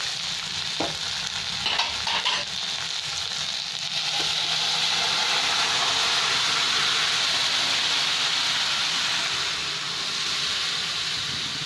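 Fried vegetables sizzling in hot oil in a kadai, with a few short knocks of the metal spatula in the first couple of seconds. From about four seconds in, the sizzle swells into a loud, steady hiss as boiled dal is poured into the hot pan, easing near the end.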